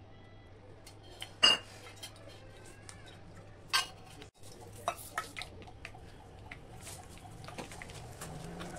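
Two sharp clinks of steel cookware, then scattered light ticks. Near the end a sizzle builds as seeds go into hot oil in a small tempering pan.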